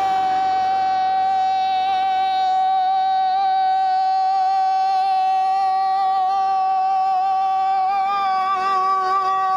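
A voice holds the final vowel of a shouted '¡Panadero!' as one long, high, steady note, wavering slightly near the end. This is the breath-holding 'reto del panadero' challenge.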